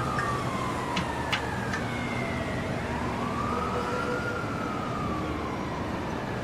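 A siren wailing, its tone slowly rising and falling, one full sweep every four to five seconds, over a steady background hiss, with a couple of sharp clicks about a second in.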